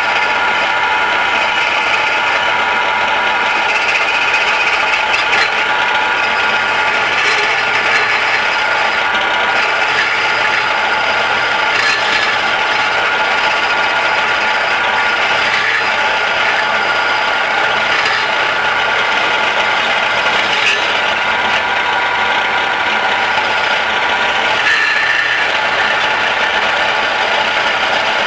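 Homemade electric wood lathe running steadily with a whine, while a hand-held turning tool scrapes the spinning wooden spindle, with a rough cutting hiss and occasional small clicks.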